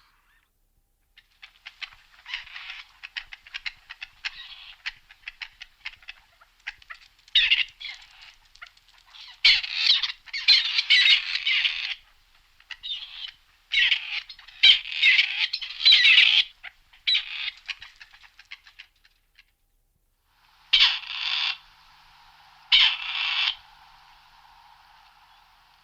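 Grey partridge calling: a long run of harsh, rasping notes in quick succession through most of the clip, then after a short pause two separate grating calls about two seconds apart near the end.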